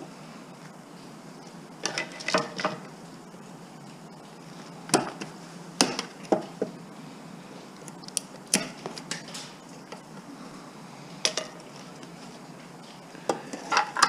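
Metal scrap parts clinking and knocking as they are handled and pried apart, in irregular sharp taps, some in quick clusters of two or three.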